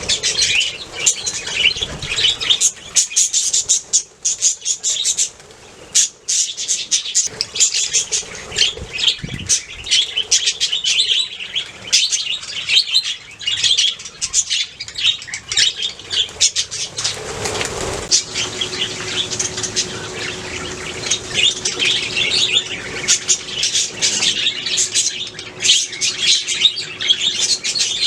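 Budgerigars chirping and chattering in a continuous, busy stream of quick high calls. About seventeen seconds in there is a brief rustling whoosh, and after it a faint steady hum sits under the chatter.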